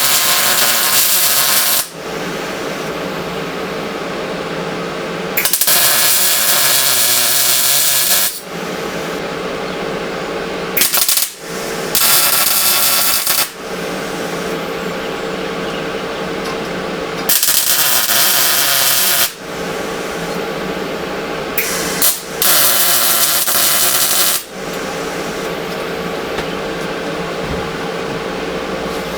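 A power tool running steadily on sheet steel, with repeated loud, hissing bursts of a second or two each as it bites into the metal, several times over.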